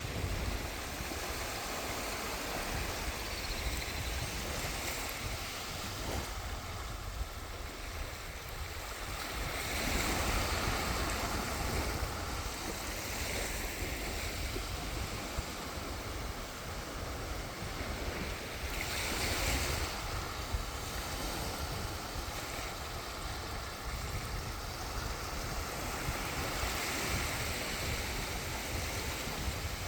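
Sea waves surging onto the shore in a continuous wash, swelling louder every several seconds as each wave breaks.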